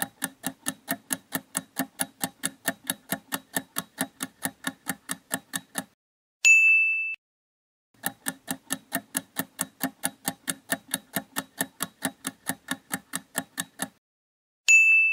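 Clock-style ticking quiz countdown sound effect, about five ticks a second for roughly six seconds. A single bright bell ding comes a little after six seconds in, then the ticking runs for about six seconds more and another ding sounds near the end.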